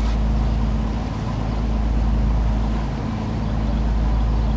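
Boat engine running steadily, a low droning hum over a heavy rumble, swelling and easing slightly every couple of seconds.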